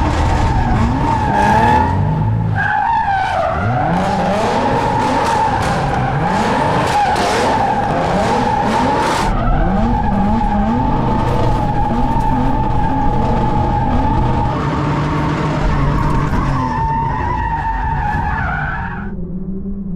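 Nissan 350Z drift car, tuned to about 600 hp, drifting: its tyres hold one long squeal while the engine revs rise and fall again and again. About a second before the end the squeal and engine cut off and a low steady hum remains.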